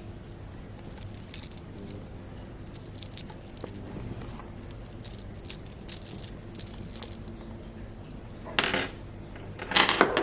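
Handling noise from an unboxing: scattered light clicks and clinks, with two louder rustles near the end.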